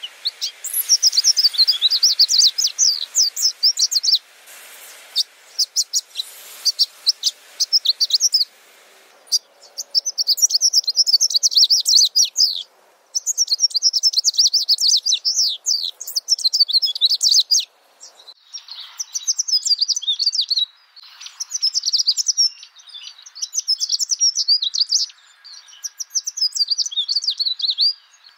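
Baby long-tailed macaque squealing in rapid high-pitched chirps, in bouts of a few seconds with short pauses between them, while an adult holds it down and grooms it.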